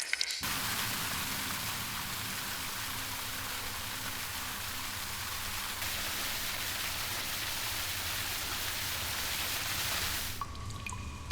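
Steady rush of falling water in a limestone cave, an even hiss that cuts in sharply about half a second in and stops abruptly near the end.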